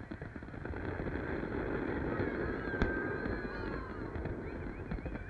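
A large fireworks display going off: a steady rumble of distant bursts with dense crackling, and one sharp bang about three seconds in. Long, high whistling tones drift slowly downward over it.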